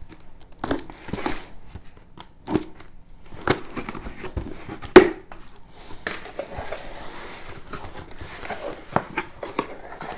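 Cardboard box being opened by hand: flaps pulled up and folded back, with rustling, scraping and a few sharp clicks, the loudest about five seconds in.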